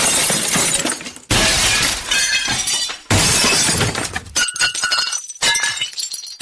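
Glass shattering, over and over: a new smash every one to two seconds, each followed by tinkling shards that die away.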